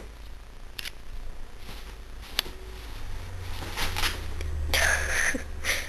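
Soft rustling and shuffling of bedding as a cat moves about on a duvet, with a few short scratchy bursts and one sharp click. The loudest, longest rustle comes about five seconds in.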